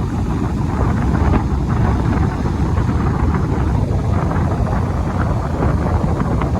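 Strong wind buffeting the microphone: a loud, continuous low rumble with no letup.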